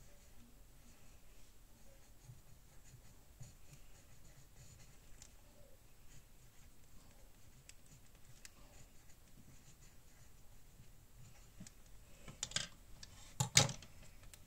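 Pen scratching faintly on paper during handwriting, with small scattered ticks. Near the end come two louder knocks, the second the loudest.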